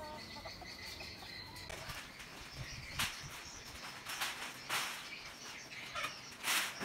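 Faint outdoor background with birds chirping, and several short rustling scuffs, the loudest near the end.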